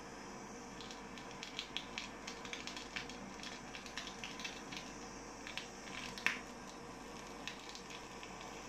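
Kitchen blowtorch flame hissing steadily as it sears pieces of monkfish, with irregular small crackles and pops, the loudest a little after six seconds in.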